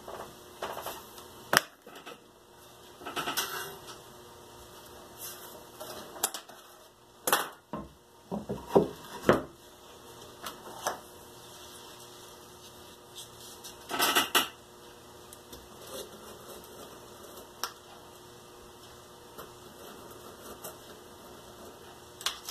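Workbench handling sounds: scattered knocks and clicks as tools, a ruler and a wooden board are moved and set down on a desk, loudest in the first half. After that come only faint small sounds as a craft knife works on a paper template laid on the board.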